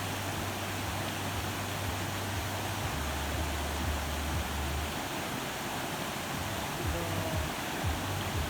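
Steady, even rushing noise with a low hum under it; the hum drops in pitch about three seconds in and fades out about two seconds later.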